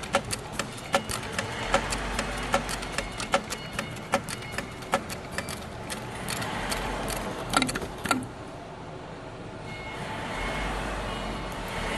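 Industrial heavy-duty sewing machine stitching at a slow, even pace, with a sharp clack on each stitch, about two to three a second. The clacking stops about eight seconds in, leaving a quieter steady hum.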